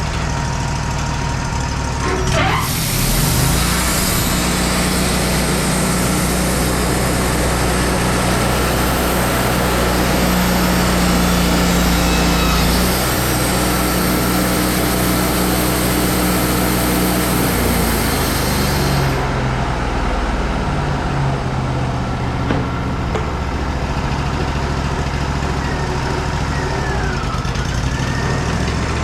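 Woodmizer LT40 band sawmill running, its blade cutting through madrone with a steady hiss from about two seconds in until a few seconds past the middle. The engine keeps running under load, and its pitch shifts as the cut ends.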